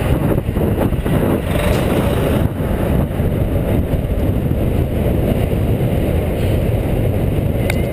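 Steady rumble of city traffic mixed with wind on the microphone of a bicycle-mounted camera, riding close beside a city bus.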